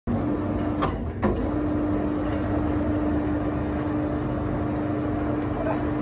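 Engine running steadily with a steady whine over a low rumble, and two sharp knocks about a second in.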